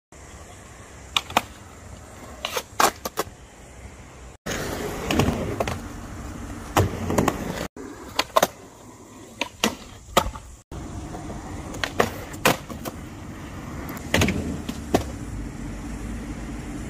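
Skateboard wheels rolling on concrete, with sharp clacks as the board is popped, lands and hits ledges. The sound breaks off abruptly three times where short clips are joined.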